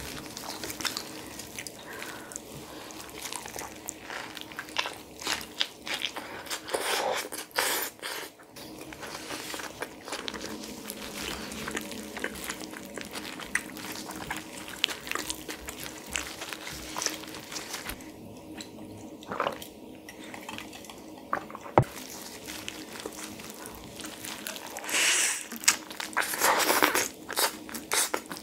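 Chewing a spicy chicken wrap of flour tortilla, chicken and lettuce, with many small clicks and crackles, while gloved hands handle the tortilla. Louder, crunchy bites into the wrap come near the end.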